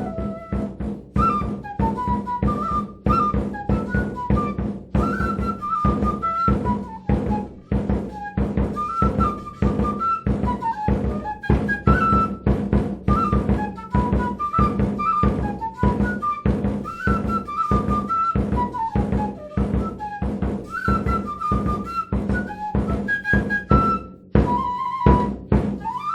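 Peruvian traditional folk music: a high melody of held and sliding notes over a steady, regular drum beat and a constant low drone.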